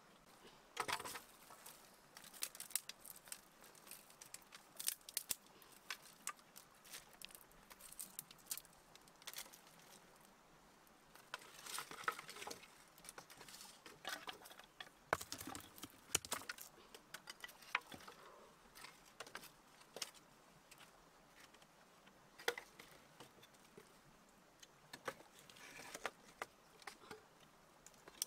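Dry sticks and stones being handled and set down by hand: irregular clicks, knocks and light rustling, with short quiet gaps between.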